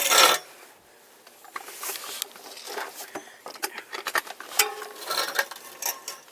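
Hands working on bicycle parts: a loud, brief scrape right at the start, then scattered small clicks, taps and rattles.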